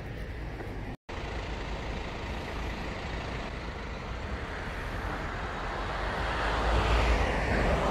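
Road traffic noise, a steady hiss of passing vehicles that breaks off for a moment about a second in, then a vehicle growing louder over the last few seconds.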